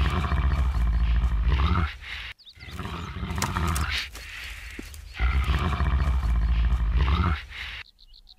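A deep animal roar, repeated in long roars about two seconds each, with a softer one between two loud ones. It cuts off sharply shortly before the end.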